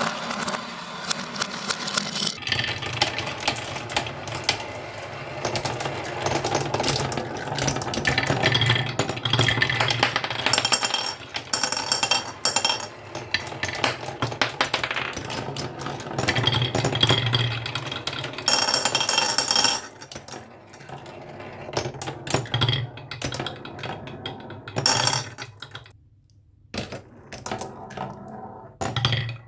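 Many marbles rolling and clattering down a toy marble run: a dense run of clicks and knocks over a low rolling rumble. It thins to scattered clicks about two-thirds of the way through, with a brief lull near the end before a few more.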